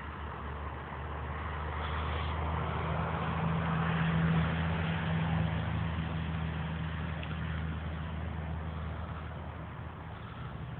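A road vehicle passing by: a low engine hum with tyre noise that swells to its loudest about four seconds in, then fades slowly.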